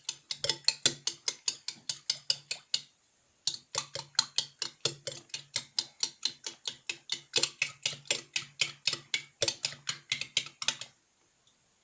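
A spoon stirring a foamy slime mixture of powdered detergent and liquid soap in a cup, knocking against the sides in quick, even strokes, about four a second. The stirring pauses briefly about three seconds in, then carries on.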